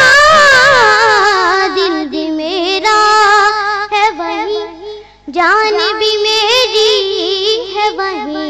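A boy singing an Urdu devotional naat, drawing out long ornamented notes without clear words: a held note falls away in the first two seconds, then wavering runs, with a brief break about five seconds in before the voice returns.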